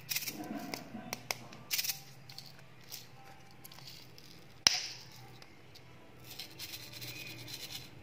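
Hands handling a small plastic soda-can-shaped candy container: crinkly clicks and rustles over the first two seconds, a single sharp snap as the lid is pried open a little past halfway, then a soft rattle of tiny candy pellets tipping out into a palm near the end.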